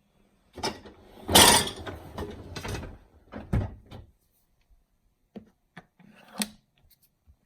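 Dishwasher door and racks being handled: a loud rattling slide about a second in, then a knock and a few sharp clicks.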